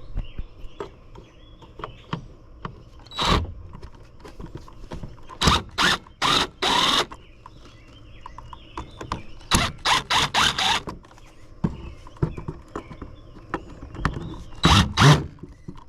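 Groups of short, harsh scraping squeaks, with small clicks and knocks between them, as parts are prised and worked loose while an old radio is taken apart.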